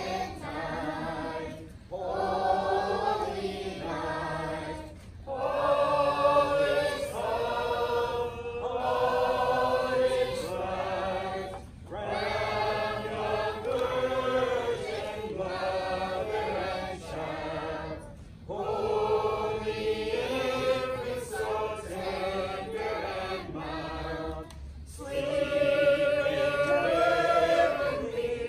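A mixed group of carolers, men, women and children, singing a Christmas carol together, in phrases of a few seconds with short pauses for breath between them.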